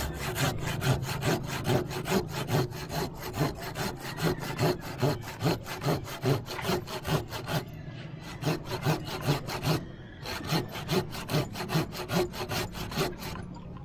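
Handsaw cutting through a narra tree branch, the teeth rasping through the hardwood in fast, even back-and-forth strokes. The sawing breaks off briefly about halfway through and again about ten seconds in, then stops shortly before the end.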